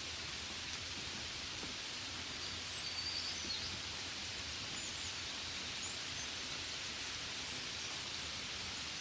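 Steady, gentle rain hiss, with a few short high chirps about three seconds in.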